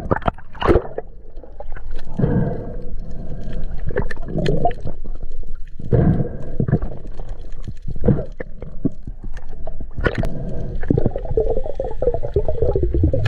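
Muffled underwater sound picked up by a submerged camera: water rushing and gurgling in irregular surges, with scattered short clicks and knocks.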